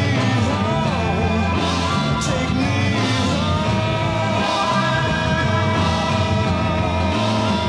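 Late-1960s psychedelic rock band recording playing. Melody lines bend in pitch at first, then one long note is held from about three seconds in, over a steady bass and drum backing.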